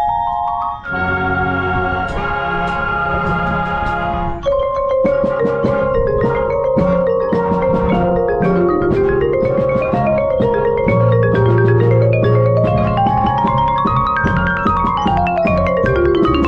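Music made of pitched notes in quick runs that rise and fall, with a new section starting about four seconds in.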